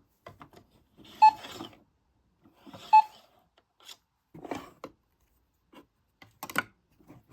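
Bluey toy cash register beeping twice, about a second and a half apart, as its pretend credit card is put into the card slot on top, followed by a few light clicks and knocks.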